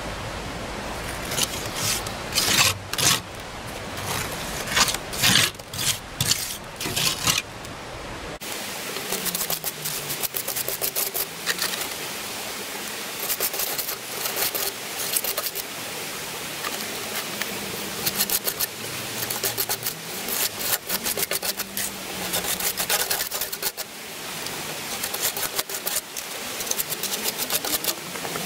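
Steel trowel scraping and pressing wet mortar into the joints of hollow clay bricks, a long run of short, quick scrapes. A low rumble under the first eight seconds drops away about eight seconds in.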